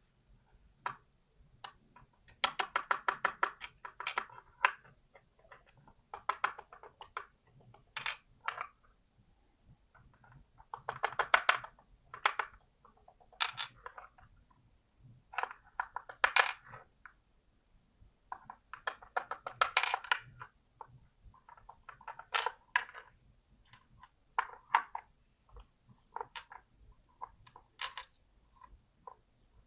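Small metal lock parts clicking and rattling in short bursts, the loudest a few seconds in, around eleven seconds and around twenty seconds, as a pin-tumbler lock with a ball bearing in its chamber is taken apart.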